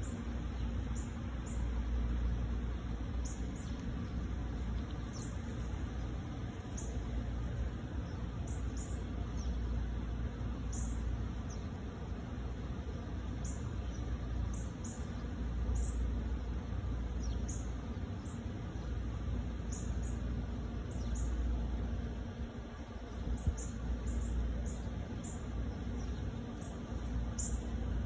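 Wind buffeting the microphone in uneven gusts, with scattered short, high chirps over it.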